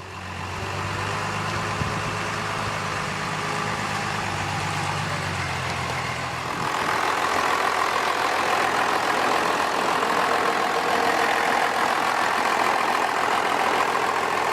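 Aircraft tow tractor's Cummins six-cylinder turbo diesel engine running steadily at idle, then growing louder and higher in pitch about six and a half seconds in and holding there.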